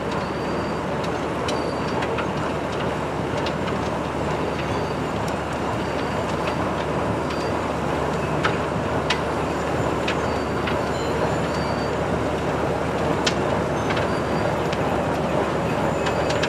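SM2 snow-removal train running on the track: a steady mechanical noise with scattered sharp clicks.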